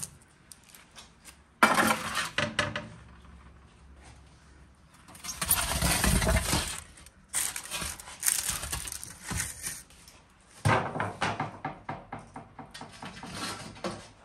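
Metal baking trays scraping and clattering as they are slid across the floor of a wood-fired brick oven and set down, in several separate bursts, the first starting sharply about a second and a half in.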